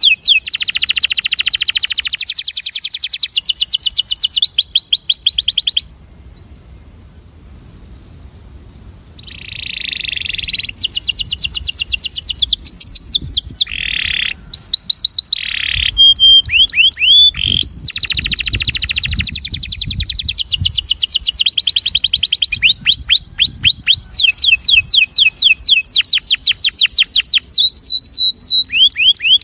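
Male domestic canary singing: long, fast trills of rapidly repeated notes, broken by a pause of a few seconds about six seconds in. This is a breeding male's song, offered as a song to attract canaries.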